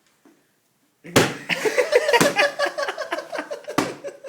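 A single loud hand clap about a second in, waking a sleeper, followed by loud shouting and laughter, with two more sharp smacks later.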